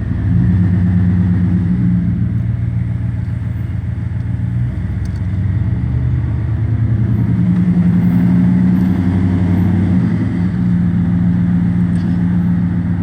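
Car engine running as the vehicle drives slowly along, a steady low drone whose pitch shifts up and down a few times.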